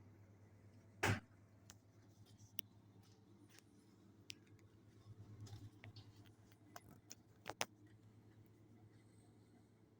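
A refrigerated display case hums faintly and steadily. A single sharp knock comes about a second in, and a few light clicks and ticks follow.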